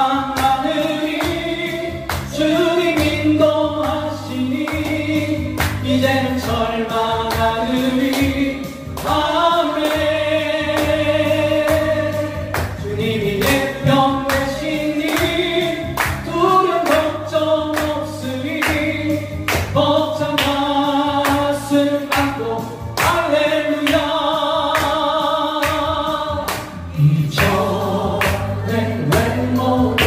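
A man singing a Korean gospel praise song into a microphone, over an accompaniment with a steady beat.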